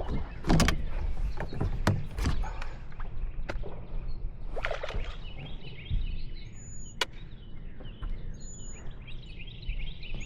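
Scattered knocks and clicks of handling gear and a freshly netted fish in a fishing boat, over a steady low rumble. From about halfway in, birds chirp in quick repeated notes.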